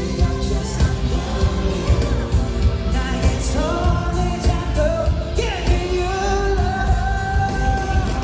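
Live pop concert music filling a large arena, recorded on a phone from the seats: a heavy bass beat, with a singer holding long notes from about halfway through.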